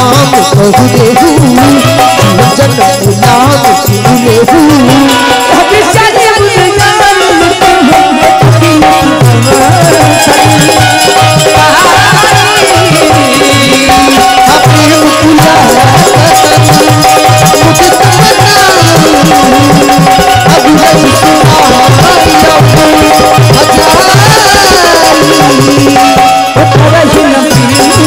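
Live Ramayan chaupai music: dholak drumming a steady beat under harmonium and a sliding melody line.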